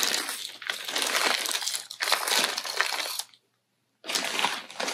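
Clear plastic kit packaging crinkling and rustling as it is handled, in irregular bursts. It drops out for about half a second near three seconds in, then resumes.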